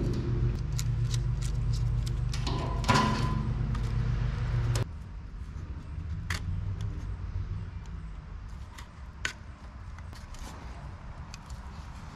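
Small clicks and metallic clinks of an in-tank fuel pump and sending unit assembly being handled and worked on. A steady low hum runs under them and cuts off suddenly about five seconds in.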